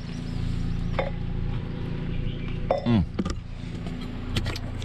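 A steady low mechanical hum, like a motor running. Faint clicks come about a second in and near the end, and a short falling voice-like sound comes about three seconds in.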